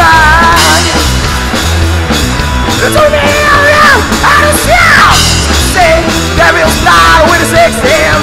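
A rock band playing a loud, hard-rock song with drums, bass and distorted guitars. Over the band, a high lead line slides and bends in pitch, either a guitar solo or shouted vocals.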